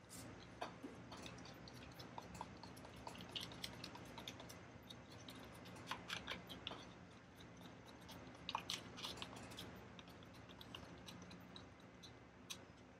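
A stick stirring and scraping resin and liquid hardener in a small plastic cup: faint, irregular clicks and scrapes, over a steady low hum.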